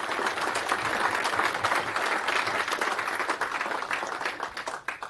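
An audience applauding: many hands clapping at once, a dense steady patter that dies away near the end.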